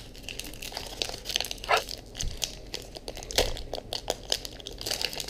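Foil wrapper of a Pokémon Sun & Moon booster pack crinkling in irregular crackles as it is handled and torn open.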